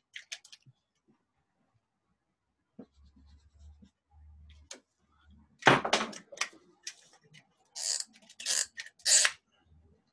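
Handling noises, with a loud thump or rustle about six seconds in, then several short scratchy strokes of a dry-erase marker on a whiteboard near the end.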